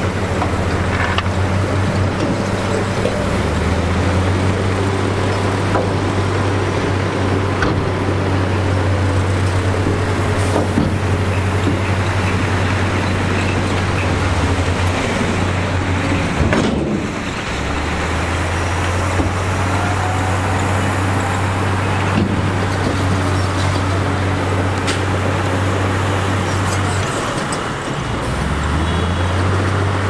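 Heavy earthmoving machine's diesel engine running with a loud, low drone, its pitch dropping and picking back up several times as the revs change, with a brief dip and recovery about halfway through.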